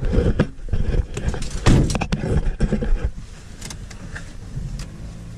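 Rustling, knocking handling noise from a canvas bag being shifted about inside a car for about the first three seconds. After that only the car's steady low cabin hum remains.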